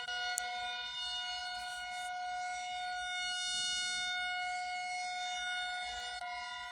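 Civil defense siren sound, played backwards, holding one steady tone with many overtones. A short click sounds about half a second in.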